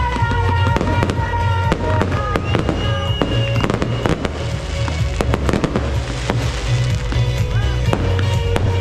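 Aerial fireworks: a dense run of bangs and crackles as shells and rising comets burst, with music playing throughout.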